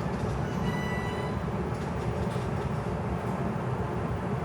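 Rumble of a JR East E235 series electric train, with a thin high whine in its first second or so.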